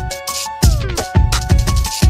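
Background electronic music with a steady drum beat and sustained synth notes.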